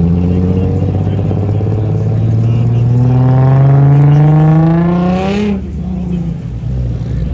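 Performance car engine accelerating away, its revs climbing for about two seconds, then falling sharply at a gear change about five seconds in, with a short hiss.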